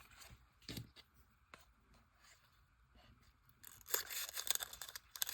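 Packaging being handled: a few faint taps, then crinkly rustling of wrapping starting near the end.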